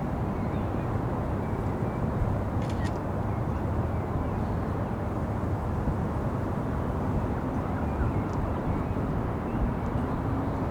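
Steady low rumble of London city ambience, mostly distant traffic, heard from a rooftop. Faint high chirps come and go over it, with a brief pair of thin clicks about two and a half seconds in.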